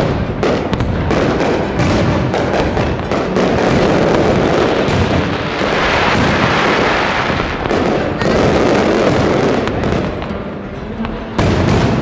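Dense fireworks barrage: aerial shells bursting one on top of another in a continuous rattle of bangs and crackle, loud throughout. The barrage eases for about a second near the end, then comes back with a fresh loud burst.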